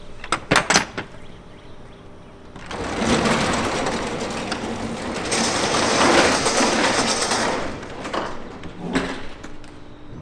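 Freight trailer's rear roll-up door: the latch handle clanks a few times, then about three seconds in the door rolls up with a long rattling rumble of about five seconds, followed by a few knocks.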